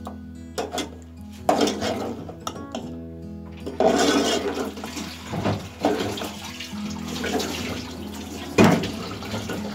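Metal spoon stirring through thick, hissing masala gravy in an aluminium pot, with several sharp knocks of the spoon against the pot, the loudest near the end. Background music with sustained notes plays underneath.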